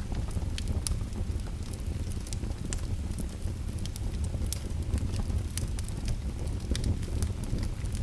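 Fire crackling: irregular sharp snaps and pops, a little over one a second, over a steady low rumble of the flames.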